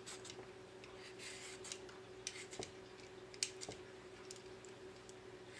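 Faint, irregular scraping strokes of a vegetable peeler taking the skin off a cucumber, with one sharper click about three and a half seconds in. A steady low hum runs underneath.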